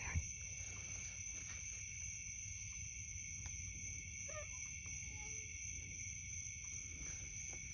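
Steady, high-pitched chorus of night insects, with a low rumble from the phone being handled.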